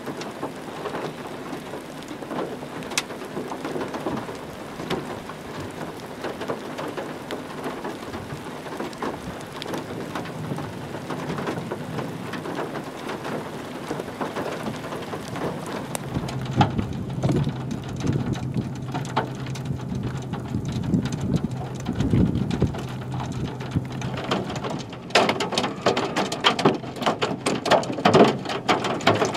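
Rain pattering on a car's windshield and roof, the drops coming much denser and harder from about 25 seconds in.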